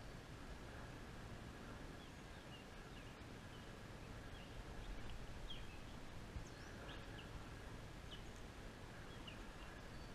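Small birds chirping in a series of short, high, scattered calls over a steady low background of outdoor noise.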